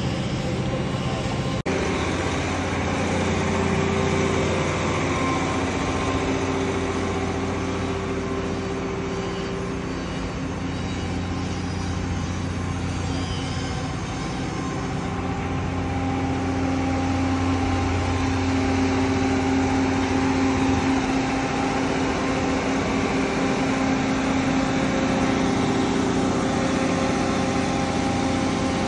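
Diesel engine of a road-rail flash-butt rail-welding truck running steadily, its pitch shifting slightly over time, with a single click about a second and a half in.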